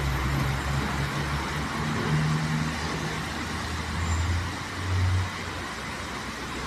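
Heavy rain pouring down in strong wind, a steady hiss, with a low rumble underneath that swells briefly about four and five seconds in.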